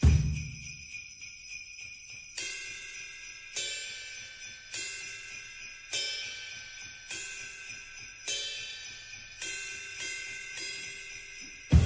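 Background music with a jingling, bell-like texture: a repeating pattern of chiming notes that shifts about every second, starting suddenly out of silence.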